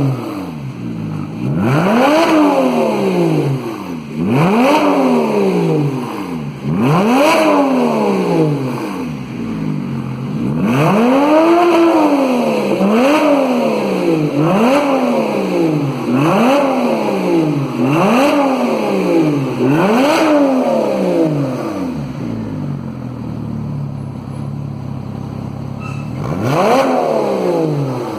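Porsche Boxster S engine through a sport exhaust, loud, being revved in quick blips about every two seconds, each climbing and dropping back to idle. About twenty seconds in it settles to a steady idle for several seconds, then is blipped again near the end.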